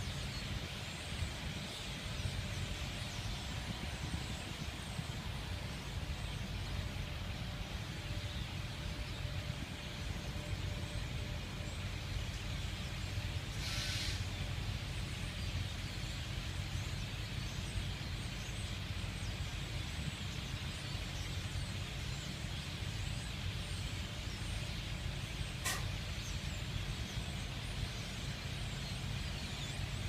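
Steady low rumble of a vehicle, with the constant chatter of a huge flock of blackbirds gathering at a winter roost over it. A brief rush of noise comes about halfway through.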